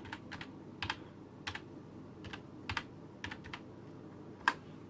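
Typing on a computer keyboard just repaired after a broken wire: a slow, uneven run of about ten key clicks, the loudest near the end.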